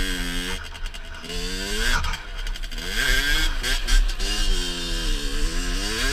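Rieju MRT SM motorcycle engine being ridden, revving up and down. The pitch climbs, drops sharply and climbs again several times as the throttle is opened and closed through the gears.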